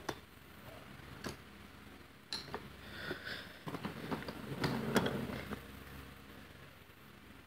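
Faint handling noise of a toy subway car being moved across a tabletop. Scattered light clicks, then a flurry of clicks and a short rustle a few seconds in, loudest about two thirds of the way through.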